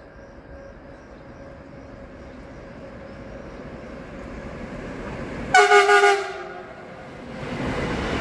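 Freight train approaching on an electrified line, its rumble growing louder. About five and a half seconds in, the electric locomotive sounds one short, loud horn blast, and near the end the wagons pass close by with a louder rolling rumble.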